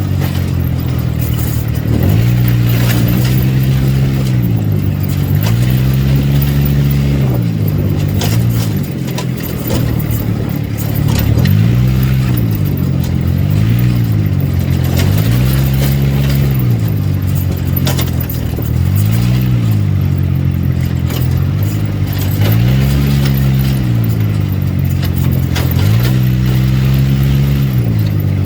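ATV engine running under load, its pitch rising and falling over and over as the throttle is opened and eased off, with rattling and clicking from the machine throughout.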